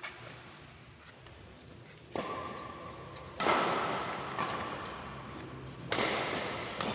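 Badminton rackets striking a shuttlecock during a doubles rally: several sharp hits, the loudest about three and a half seconds in, each ringing out in the echo of a large hall.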